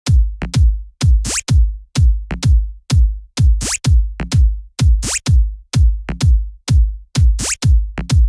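Electronic dance music with a heavy, deep kick-drum beat and a rising synth swoop every second or two.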